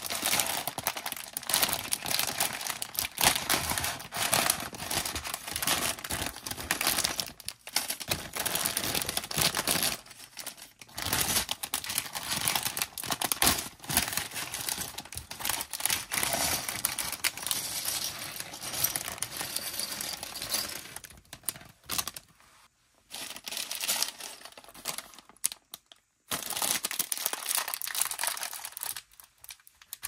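Clear plastic LEGO parts bags crinkling as they are handled and torn open: first the large numbered bag, then a smaller inner bag near the end, with a few brief pauses.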